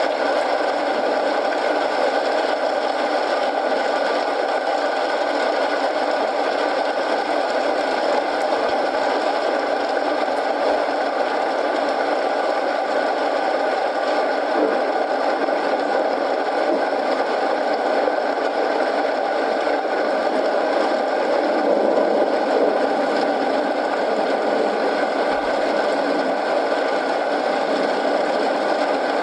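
Steady rain mixed with a crackling wood fire in a fireplace: an even hiss of rainfall with small wood crackles now and then.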